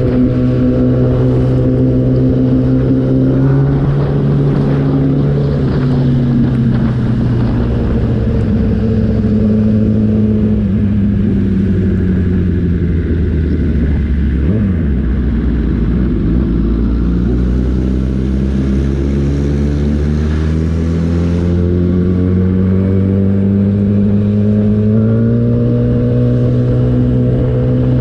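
Kawasaki ZX-10R inline-four engine heard on board: it holds steady revs, then its note falls over about ten seconds as the bike slows, and rises again as it accelerates, under a steady rush of wind noise.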